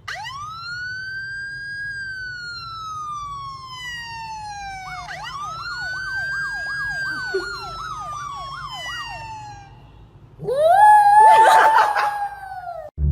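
Siren wailing: a tone rises quickly and falls slowly, then rises again with a fast warbling yelp on top. Near the end a louder, steadier pitched wail with a rough edge takes over and cuts off sharply.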